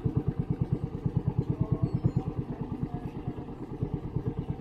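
Small boat's engine running steadily at low speed with a rapid, even throb.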